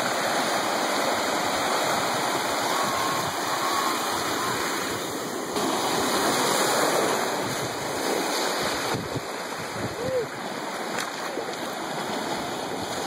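Small ocean waves breaking and washing over sand and around rocks in shallow water, a steady rushing wash of surf.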